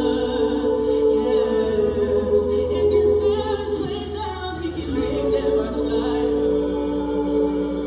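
Show choir singers on microphones holding long notes in harmony, several voices stacked in a chord; the chord falls away a little before the middle and the voices come back in for a second long held chord.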